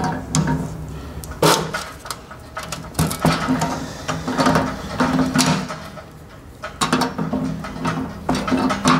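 Hand tools clinking and knocking on a gas water heater's metal gas-line fittings as they are worked loose, with irregular sharp metallic clicks, the loudest about a second and a half in and again at three seconds.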